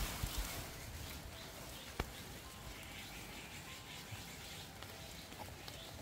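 Steady rain, a soft even hiss, with a single sharp tap about two seconds in.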